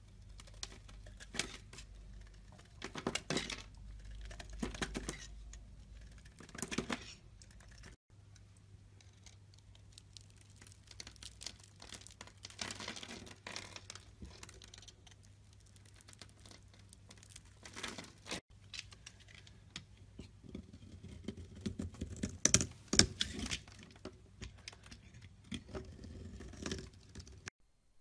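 Bars of soap being shaved with a blade and crumbled by hand: dry scraping and crunching strokes that come in short runs, with small soap cubes crackling apart under fingers partway through. The loudest strokes come about three quarters of the way through.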